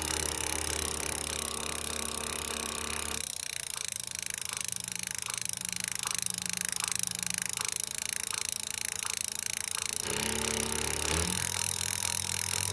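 Halo e-bike's electric motor whining under power, then running with a steady hum and a regular click about twice a second, before whining again. The owner suspects the sound means a bad motor.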